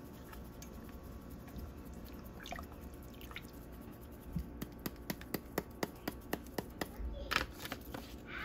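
Seasoning being shaken out of a spice container over a soup pot: a quick run of light, evenly spaced clicks, about four a second, lasting a couple of seconds past the middle.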